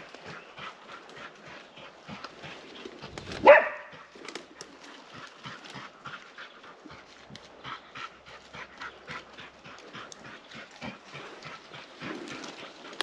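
Tracking dog panting rapidly in short, even breaths, with a single loud bark about three and a half seconds in.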